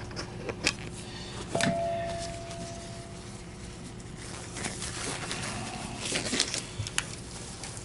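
Light handling noises at a workbench: scattered clicks and knocks. About a second and a half in, a click is followed by a short ringing tone that fades away over about a second.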